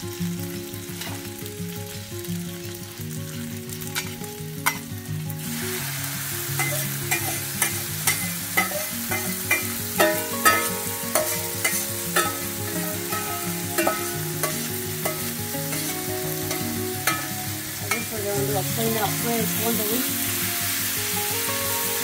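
Food frying on a hot flat-top griddle, with metal tongs and a blade clicking and scraping on the steel. About five seconds in, the sizzle grows much louder and hissier as raw chicken pieces are tipped onto the hot surface.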